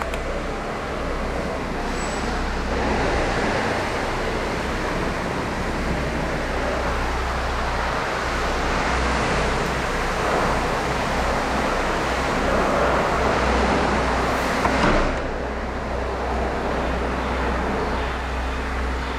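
Steady vehicle noise, a low rumble under a broad hiss, with a brief louder sound about fourteen seconds in.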